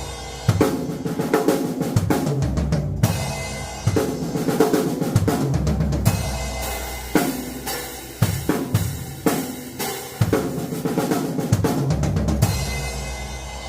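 Acoustic drum kit playing fast gospel-chops fills built on six-stroke rolls on the snare, with bass drum and repeated cymbal crashes every second or two. A cymbal is left ringing and fading near the end.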